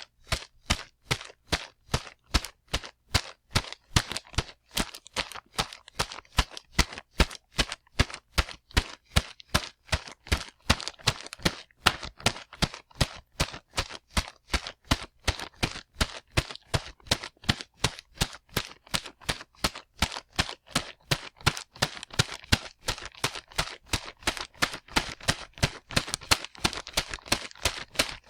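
Footsteps of a man running fast: an even stream of hard footfalls, about three to four a second.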